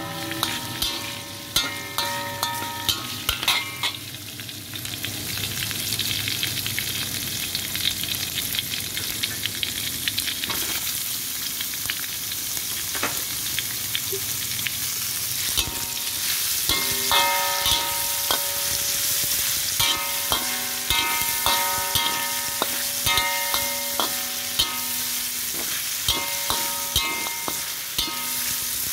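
Chicken and tofu pieces sizzling in oil in a stainless steel pan while being stir-fried with a metal spoon. The spoon scrapes and clinks against the pan many times, and in the second half the pan rings at the same notes with each knock.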